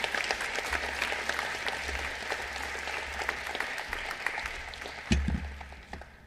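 Audience applauding, a dense patter of many hands clapping that dies away near the end. A single low thump comes about five seconds in.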